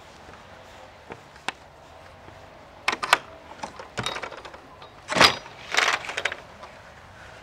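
A house door being worked open and shut: two light clicks, then from about three seconds in a run of sharp clicks, knocks and rattles of latch and lock hardware, the loudest about five seconds in.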